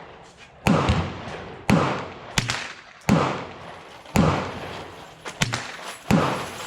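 Gunshots at a shooting range: about five loud reports roughly a second apart, each followed by an echoing tail, with two smaller, sharper cracks between them.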